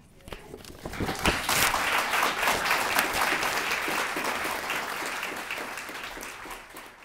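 A sheet of paper being torn up at the start, then audience applause that builds about a second in and fades away near the end.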